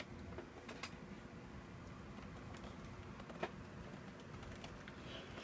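Faint scattered clicks of a screwdriver working at a tight screw in a cassette deck's metal chassis, over low background noise. The sharpest click comes about three and a half seconds in.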